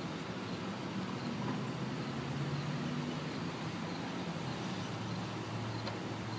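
Road traffic: a motor vehicle's engine running with a low, steady hum that shifts slightly in pitch, over a constant traffic noise.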